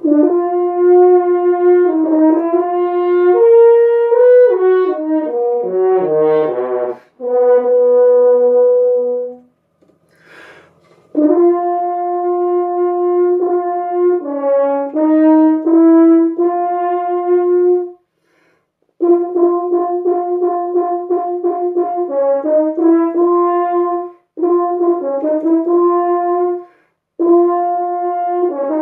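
French horn played solo: phrases of held notes and short runs, one run stepping down into the low register about five to seven seconds in. The phrases are broken by short pauses, with a quick breath heard about ten seconds in.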